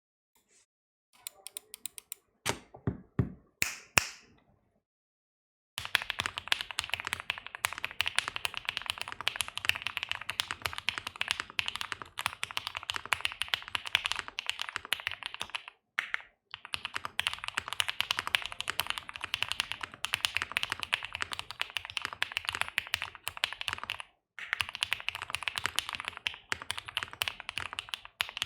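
Custom Mr. Suit mechanical keyboard with lubed UHMWPE-stem NK Cream linear switches being typed on. A few scattered keystrokes and knocks come first, then a short pause, then fast continuous typing in long runs broken by two brief pauses.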